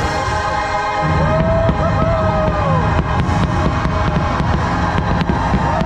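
Fireworks-show music playing loudly, with the low booms and sharp crackles of fireworks bursting under it.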